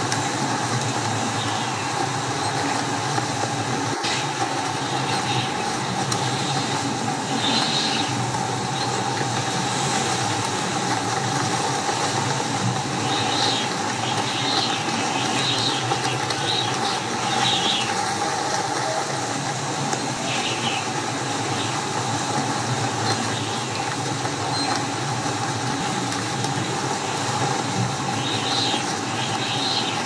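Strong wind blowing steadily, a constant rushing noise with brief higher-pitched flurries every few seconds.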